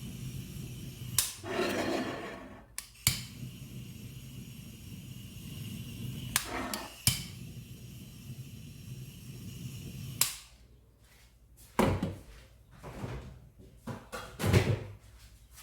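Kitchen butane blowtorch flame hissing steadily while browning Swiss meringue, with a few sharp clicks. It cuts off suddenly about ten seconds in, followed by a few knocks of things being handled and set down.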